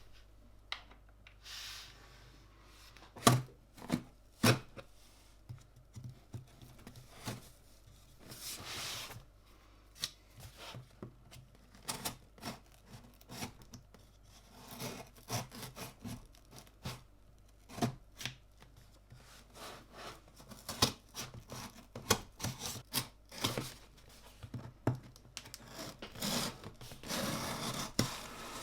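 Hands working with small keyboard parts and their packaging: irregular sharp clicks and knocks, with stretches of rustling, tearing-like noise.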